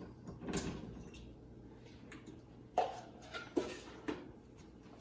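Faint kitchen handling noises: a soft scrape or rustle about half a second in, then a few sharp knocks about three to four seconds in, like cookware or a cupboard being handled.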